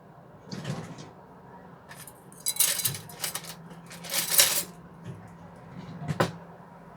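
Spoon clinking and scraping on a plate of fried rice in several short bursts, the longest two in the middle.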